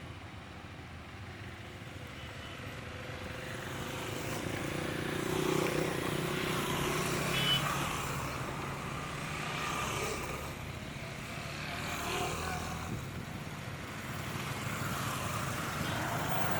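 Motorcycles running on the road: a low engine hum under a continuous rush of noise that swells and eases, starting abruptly.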